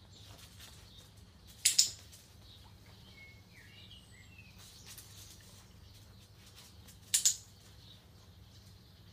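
Two sharp double clicks of a handheld dog-training clicker, about five and a half seconds apart, marking the puppy's nose touches. Faint bird chirps come in between.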